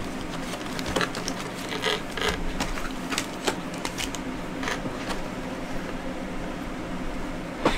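Cardboard Panini Prizm Draft Picks hobby box being handled and opened: scattered rustles, scrapes and small clicks over a faint steady hum.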